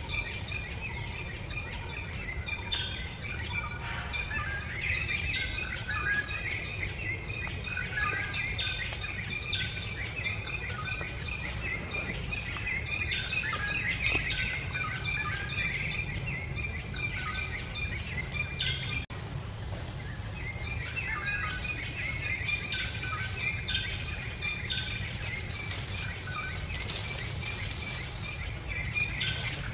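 Birds chirping in many short, repeated calls over a steady low rumble of outdoor background noise, with one sharp click about fourteen seconds in.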